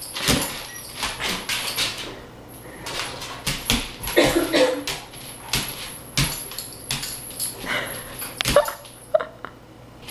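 Great Pyrenees dog making a few short vocal sounds while play-fighting, among scattered quick clicks and knocks of paws on a wooden floor.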